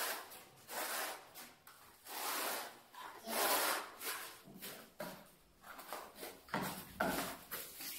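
Notched trowel scraping through cement tile adhesive, combing it into ridges in repeated rasping strokes, roughly one a second.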